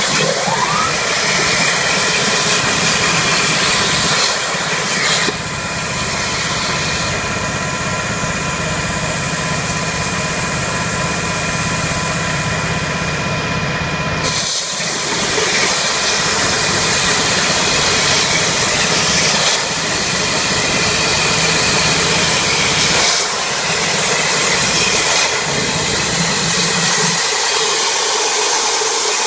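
CNC plasma cutter's torch cutting metal plate: a loud, steady hiss with a buzzing hum underneath. It drops out briefly about fourteen seconds in and starts again.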